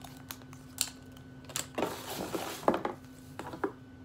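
Plastic lipstick tubes and their packaging handled in the hands: a string of small sharp clicks and light clatter, with a brief rustle about two seconds in.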